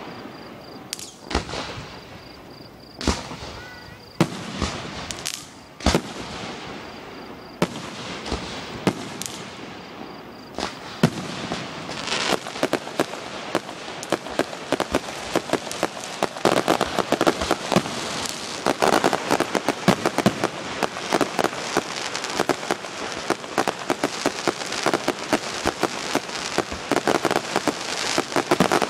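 Fireworks display: aerial shells bursting as separate sharp bangs, a few seconds apart. From about twelve seconds in they give way to a dense, unbroken crackle of rapid pops as many bursts go off together.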